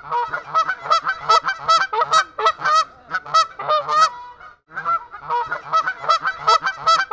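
A bird's honking calls, given quickly one after another at about four or five a second, with a short pause about four seconds in before they start again.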